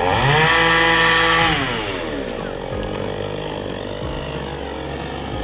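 Petrol chainsaw revved up sharply and held at high revs for about a second and a half, then dropping back to a lower steady idle.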